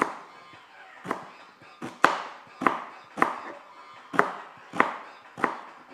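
Kitchen knife chopping through a bunch of celery stalks on a cutting board: about nine crisp chops, a little under a second apart.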